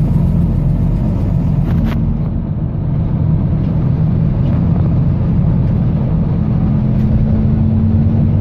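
Volvo B9TL double-decker bus's six-cylinder diesel running as the bus drives, a steady low drone heard from inside the bus, with a few faint clicks. About two-thirds of the way in, a clearer steady engine note comes in.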